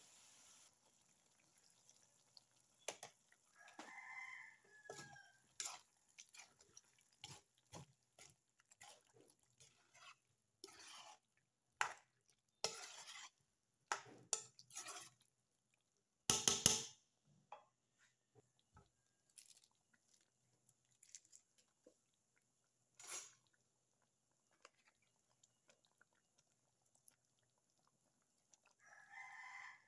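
Metal ladle stirring a thick stew in a nonstick wok, in a run of short scrapes and clinks against the pan, the loudest about halfway through. A chicken calls faintly in the background twice, once a few seconds in and again at the end.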